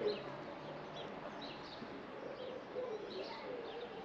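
Birds calling outdoors: short, high chirps again and again, over a lower, wavering cooing.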